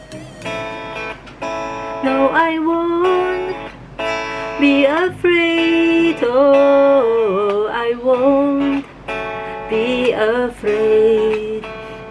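A woman singing a slow pop melody along with a guitar-based karaoke backing track, recorded without the V8 sound card, with long held notes and sliding pitch changes.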